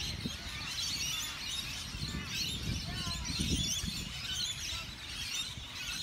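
A flock of parakeets calling in the trees: many overlapping short chirps and squawks. Wind rumbles on the microphone underneath.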